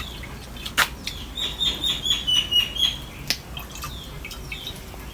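A small bird chirping a quick run of about eight short high notes, with a couple of sharp clicks before and after.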